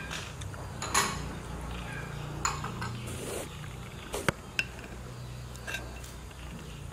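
A metal spoon clinking and scraping against a bowl of taro dessert: a handful of separate sharp clinks, the loudest about a second in and a quick cluster around four seconds, over a steady low hum.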